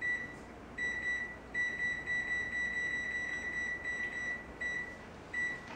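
Electronic beeps from a wall oven's control panel as the oven is being set to preheat to 425°F. A high beep sounds several times, the middle one held for nearly three seconds.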